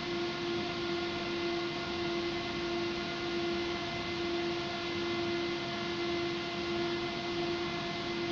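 Vario LF2 plus tram standing still, heard from inside the passenger cabin: its onboard electrical equipment gives a steady pitched hum over a constant background noise.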